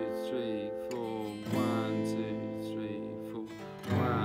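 Cole Clark acoustic guitar strummed in steady time through a C, F, A minor, G chord progression, four strums to each chord. The chord changes about a second and a half in and again near the end.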